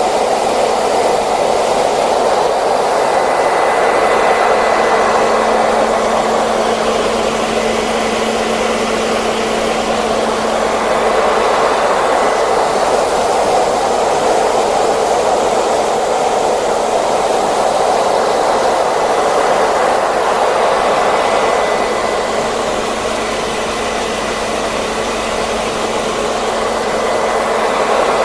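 Hair dryer blowing steadily, a continuous rush of air with a faint high whine from its motor.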